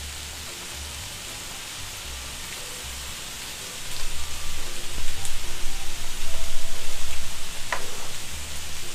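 Beef steak sizzling steadily on a hot grill pan. From about four seconds in, louder close-up chewing of a mouthful of steak rises over it.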